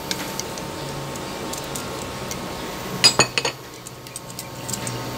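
Metal kitchen tongs clinking against a nonstick wok as the last fried saba banana pieces are lifted out of the hot oil: a few light clicks, then a quick cluster of louder clinks about three seconds in. A steady sizzle of frying oil runs underneath and is quieter after the clinks.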